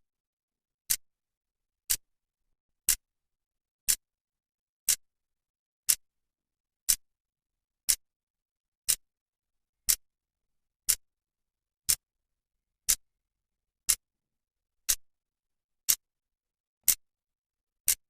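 Clock's second hand ticking once a second: short, sharp, even clicks with silence between them.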